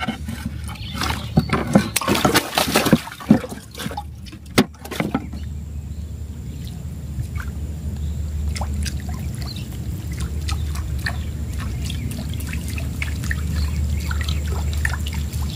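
Sharp knocks and clatter on a wooden boat deck for the first five seconds or so. After that comes a steady low sound, with water trickling and small clicks as a fishing lure is reeled back across the surface.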